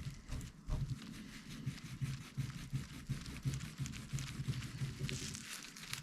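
Crackling, scratchy tearing of screen adhesive and plastic as a tablet's glued-down screen is pried and peeled away, with an irregular low hum pulsing underneath.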